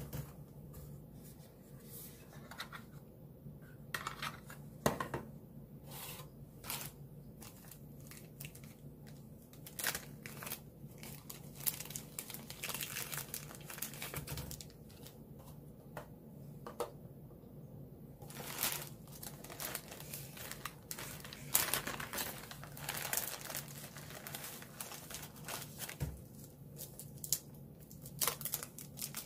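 Crinkling and tearing of paper and plastic wrappers unwrapped by hand, with many sharp clicks and taps of small parts and a pen case being handled. A faint steady low hum runs underneath.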